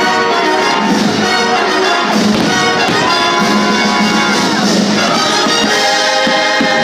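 Orchestral music with prominent brass (trumpets and trombones): the soundtrack of a fireworks show.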